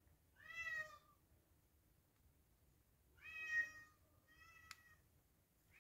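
Domestic cat meowing three times, each meow short and with a clear pitch, with a faint click during the last one.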